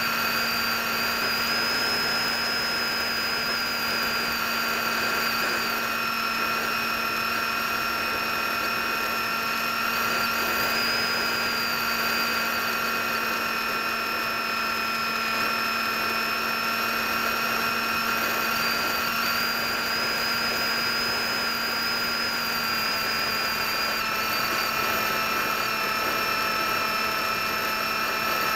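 Electric motor and propeller of a foam RC plane whining steadily in flight, picked up by the onboard camera, with a high tone that shifts slightly in pitch a few times.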